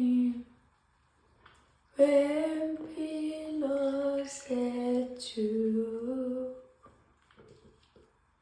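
A woman singing a short unaccompanied phrase of held notes that step up and down in pitch, from about two seconds in until near seven seconds. There is a brief sung note at the very start.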